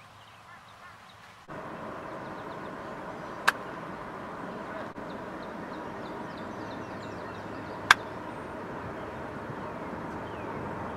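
Two sharp cracks of a golf club striking a ball, about four seconds apart, over a steady outdoor hiss that starts suddenly about a second and a half in; faint bird chirps come and go.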